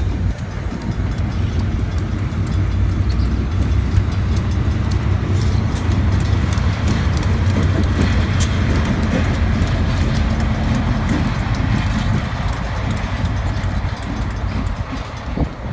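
Diesel excursion train rolling past, its locomotive engine giving a steady low drone, with a run of clicks from the wheels crossing rail joints through the middle of the passage.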